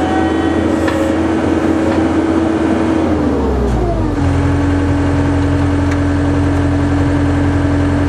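John Deere 317 skid steer loader's diesel engine running at a steady speed. About three and a half seconds in, its pitch drops as the engine slows, and it then runs on steadily at the lower speed.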